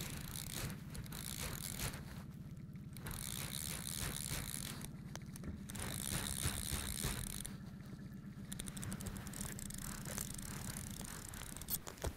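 Fly reel's click-pawl ratchet clicking rapidly in spells as a hooked fish is played, pausing briefly a few times, over a steady low hum.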